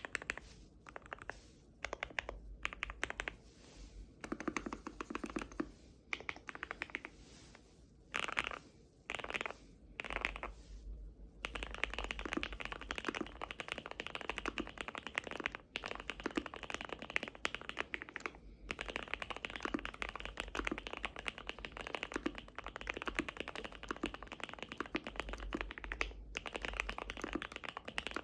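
Typing on a QK60 60% mechanical keyboard fitted with PBTfans WOB PBT keycaps. It starts with scattered keystrokes and short runs, then settles into steady fast typing with a few brief pauses.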